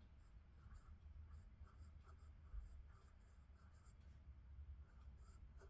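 Faint scratching of a Leonardo Vesuvio fountain pen's 14-karat gold medium nib writing cursive on Clairefontaine 90 gsm paper, a string of short strokes as the letters are formed.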